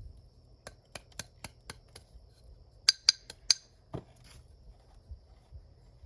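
Sharp clicking taps of a chopstick against a plant pot as it pokes and tamps potting soil down around a cactus. A quick run of light clicks comes first, then three louder ringing clinks about halfway.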